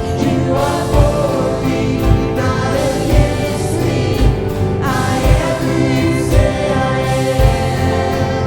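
Live church worship band playing a slow contemporary Christian song with several voices singing, a kick drum thumping about once a second.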